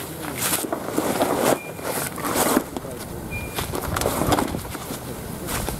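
Deflated Gumotex Twist inflatable kayak hull being unrolled and spread open on grass, its fabric rustling and flapping in irregular bursts as it is handled.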